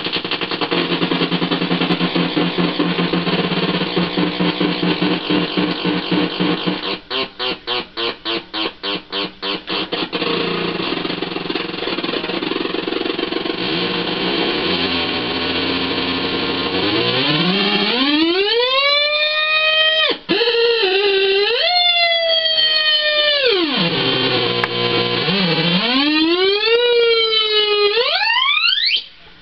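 Schumann Two Face fuzz circuit (PNP side, breadboarded) pushed into self-oscillation: a harsh, dense fuzz noise that breaks for a few seconds into rapid sputtering pulses, about five a second, then turns into a pitched squealing tone that sweeps up and down in pitch and ends in a rising glide that cuts off.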